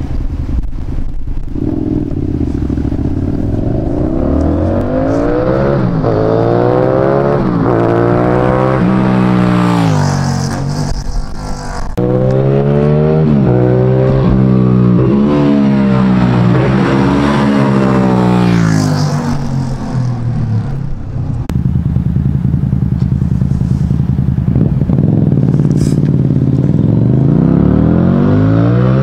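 Suzuki TL1000S motorcycle's 996 cc 90-degree V-twin through its exhaust, accelerating hard through several gears, the pitch climbing and dropping back at each shift. After an abrupt break about twelve seconds in it pulls through the gears again, holds a steadier note for a few seconds, then revs up once more near the end.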